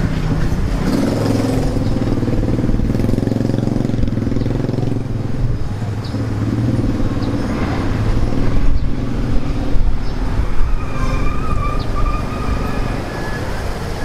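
Storm wind buffeting the microphone: a heavy low rumble that swells into stronger gusts in the second half.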